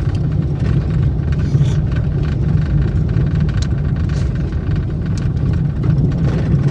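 Steady low rumble of a vehicle's engine and tyres, heard from inside the moving vehicle, with a few faint clicks.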